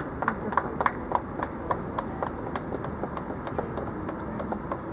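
Sharp clacks repeating about three to four times a second, over a steady crowd murmur.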